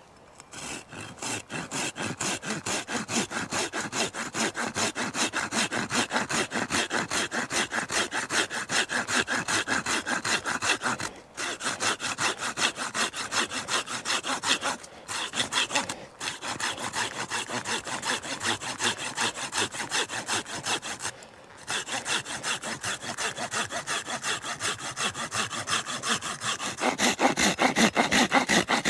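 Small hand saw cutting through a piece of firewood in quick, even back-and-forth strokes, about three to four a second, with four short pauses.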